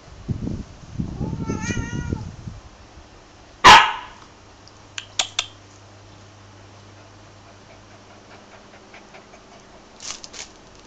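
Cat growling low, rising briefly into a wavering yowl, then one sudden, very loud sharp cry about three and a half seconds in as the cat and husky puppy face off. A few light clicks follow later.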